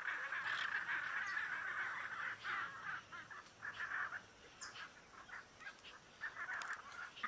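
Hyacinth macaw calls: a continuous run of calling for the first couple of seconds, then breaking into short separate calls, with a few sharp clicks among them.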